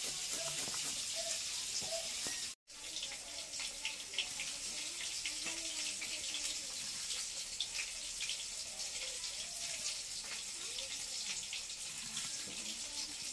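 Pieces of katla fish frying in hot oil: a steady sizzle with small crackles and pops, which drops out for a moment about two and a half seconds in.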